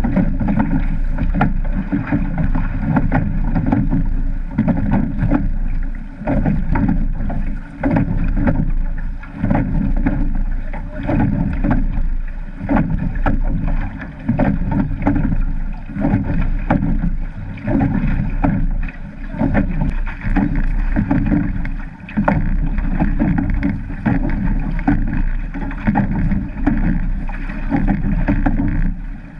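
Water rushing and splashing along the hull of a rowed surf boat, heard close from a camera mounted on the boat, with wind noise. The loudness keeps swelling and dipping, without words.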